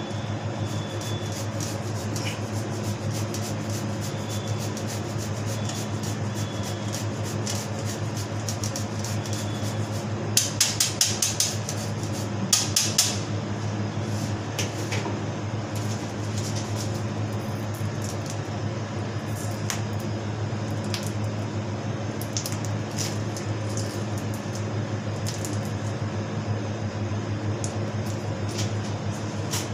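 Steady low hum with a brief clatter of kitchen utensils: a few quick knocks about ten seconds in and another few a couple of seconds later, with scattered light clicks.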